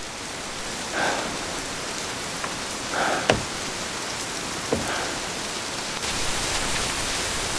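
Steady rainfall, with a soft short sound repeating about every two seconds and two sharp taps in the middle.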